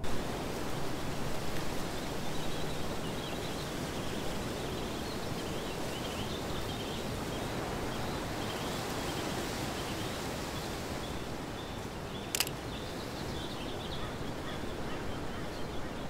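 Outdoor ambience: a steady low background noise with faint, scattered high bird chirps. A single sharp click about twelve seconds in.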